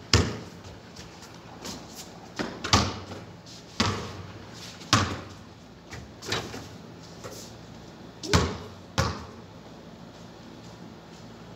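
Basketball bouncing on a concrete court and striking the rim and backboard: about nine sharp bangs at uneven intervals, each with a short ringing tail, stopping about nine seconds in.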